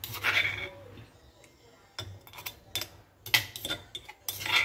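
Ceramic bowl and spoon clinking: a short scraping burst just after the start, then several sharp separate clinks and knocks through the second half.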